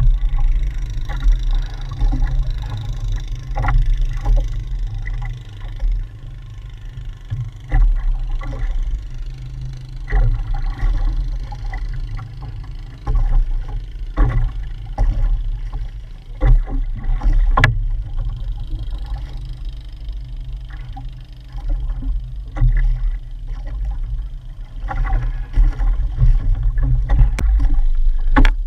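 Wind and water noise on a small outrigger canoe at sea: an uneven low rumble throughout, with scattered knocks against the boat, one sharp knock a little past halfway.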